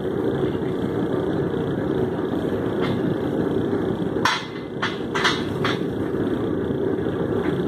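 A handful of sharp metallic clanks of steel on an anvil, about five of them between three and six seconds in, the loudest a little after four seconds, over a steady low rushing noise.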